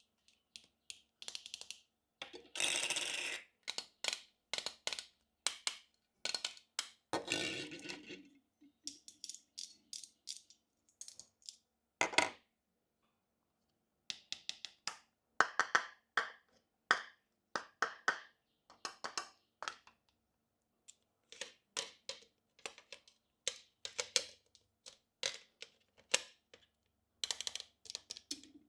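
Small plastic toy-kitchen pieces clicking, tapping and scraping as they are handled and set down, with a couple of longer scraping rustles about three seconds and seven seconds in.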